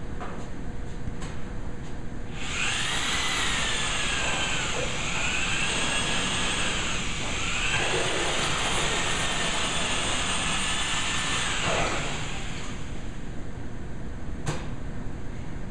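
Electric potter's wheel running with a steady low hum, and a high, wavering squeal for about ten seconds as a tool is held against the spinning clay. The squeal breaks off briefly twice before it stops, followed by a single click.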